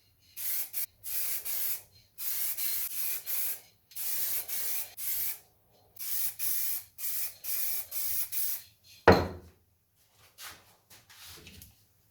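Primer spray hissing in repeated short bursts, each about a second long, as a coat is sprayed on. A single loud knock comes about nine seconds in, followed by faint handling noises.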